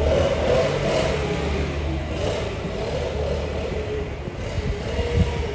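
An engine running steadily with a low rumble, loudest in the first two seconds and then easing off, with a few dull thumps near the end.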